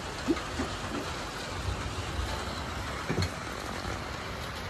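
Steady rain falling, an even hiss, with a couple of faint short sounds about a third of a second and three seconds in.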